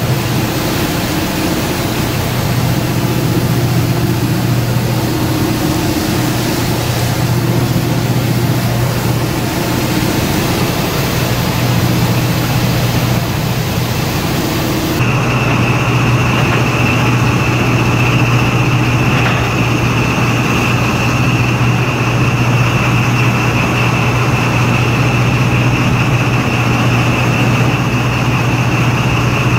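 Ship's engine running with a steady low drone under a constant rush of wind and water noise. About halfway through the high hiss drops away and a steady high-pitched whine joins the drone.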